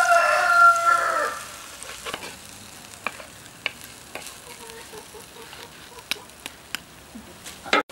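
A rooster crows in the first second or so. After it, a spatula scrapes and clicks against a clay pot as a jackfruit-seed and coconut stir fry is stirred, over a faint sizzle of the food cooking.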